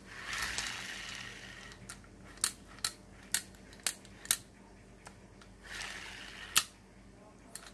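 Daiwa spinning reel worked by hand: a short whir as the handle is cranked, then a run of sharp metallic clicks about two a second as the bail arm is flipped, and a second brief whir ending in one loud click. The seller says the reel is somewhat dry of grease.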